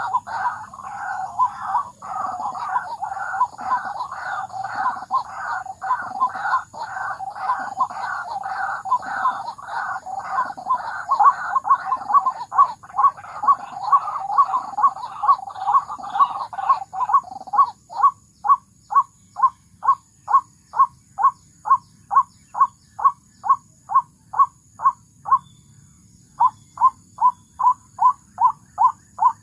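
White-breasted waterhen calls: a loud, dense run of overlapping repeated notes, then from about two-thirds of the way in, single clear notes evenly spaced at a little over two a second, with one short break near the end.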